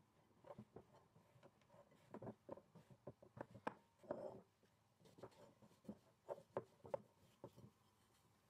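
Faint, irregular soft taps, squishes and rubbing of hands mixing and squeezing a stiff flour-and-egg dough in a glass bowl.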